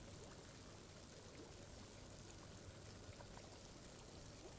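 Faint trickling and bubbling of water at an air-lift pipe, where air from an air stone rises up the pipe and draws water up with it, with small pops scattered throughout.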